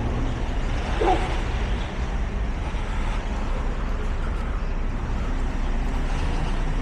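Street traffic: a steady low rumble of passing motor vehicles, with a brief louder sound about a second in.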